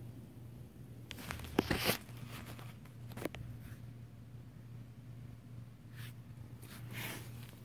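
Handling noise as the camera is moved from the stove to look down into the pan: rustles and scraping clicks, loudest in a cluster about one to two seconds in, with a few more later, over a faint low steady hum.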